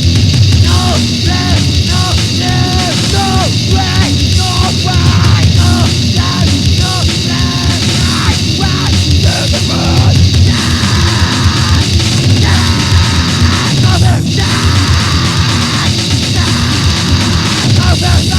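Grindcore / power violence band playing loud, fast, distorted punk from a 1999 demo tape recording. A choppy repeating riff changes to a denser, more sustained section about ten seconds in.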